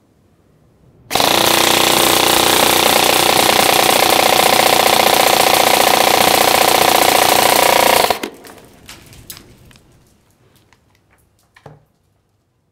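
G&P Rapid M4 airsoft electric gun (AEG) firing on full auto at a high rate of fire. It is one continuous, loud burst of about seven seconds that starts about a second in and cuts off sharply, followed by a few faint scattered taps.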